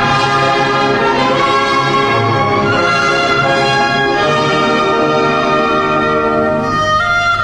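Orchestral soundtrack music with brass to the fore, playing held chords at a steady level.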